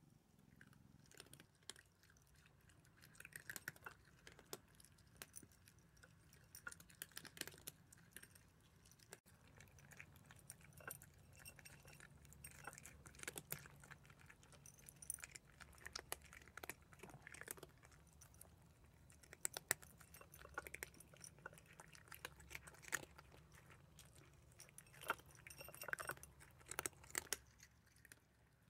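Cats chewing dry kibble from bowls, an irregular run of small crunches that keeps going for most of the stretch.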